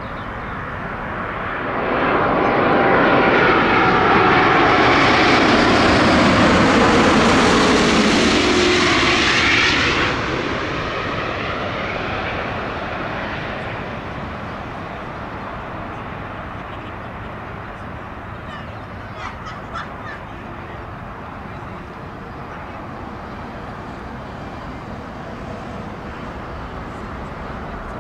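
Twin-engine jet airliner on final approach with gear down passing low overhead: the jet noise swells within two seconds, its engine whine gliding down in pitch as it goes by, and breaks off abruptly about ten seconds in. After that, a fainter steady jet rumble from another aircraft near the runway.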